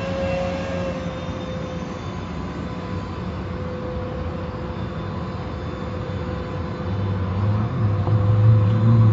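Steady mechanical drone of automatic car wash machinery, with a low hum that swells louder from about seven seconds in.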